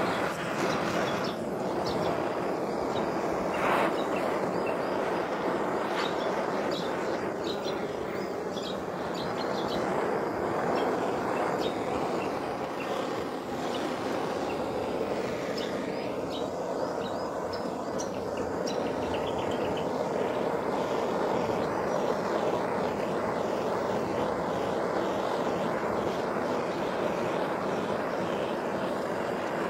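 Hose-fed gas torch burning with a steady roar as its flame is played over carved wood to scorch the surface during finishing.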